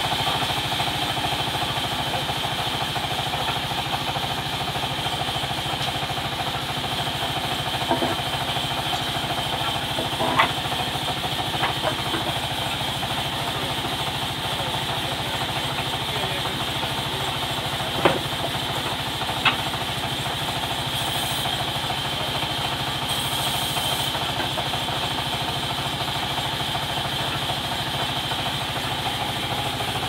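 Belt-driven band sawmill running steadily with a constant high whine while a teak slab is pushed through the blade. A few short, sharp knocks stand out, loudest near the middle.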